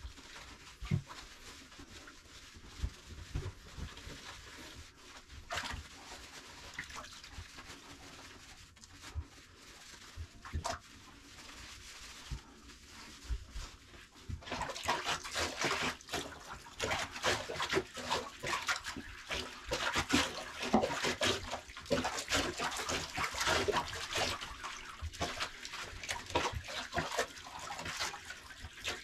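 Bathwater splashing and sloshing in a bathtub as a wet puppy is washed by hand, much louder and busier from about halfway through, with water poured from a cup near the end.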